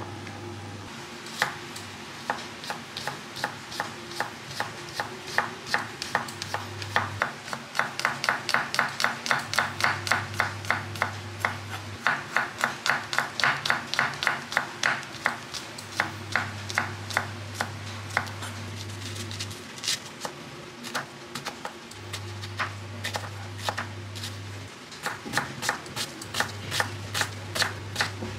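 Chef's knife chopping garlic and then onion on a wooden cutting board: a long run of crisp, even knife strokes against the board. The strokes come fastest, about four a second, through the middle, then slow and become more spaced out.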